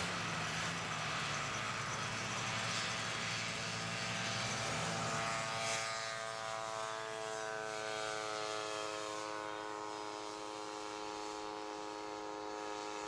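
Ultralight aircraft's small engine and propeller running at high power as it takes off and flies past. After a change about six seconds in, the engine note falls slowly in pitch, then holds steady.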